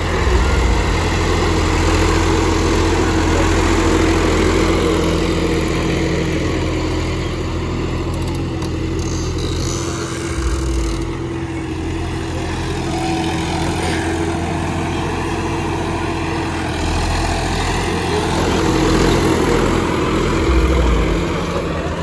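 John Deere 5075E tractor's diesel engine running steadily under load while pulling a mouldboard plough through the soil.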